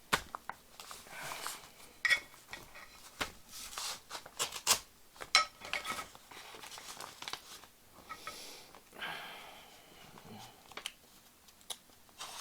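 A mailed package being opened by hand: paper and tape tearing and rustling, with many sharp clicks and taps as it is handled.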